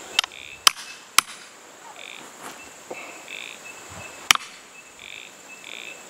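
Ball-peen hammer striking a metal wad cutter down through green bark on a wooden stump to punch out a wad: three sharp hits in the first second and a half, then one more about four seconds in.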